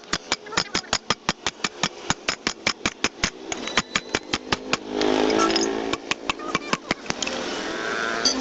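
Rapid, evenly spaced metallic clicks or knocks, about five or six a second. They break off about five seconds in for a second of steady motor-like running, then start again.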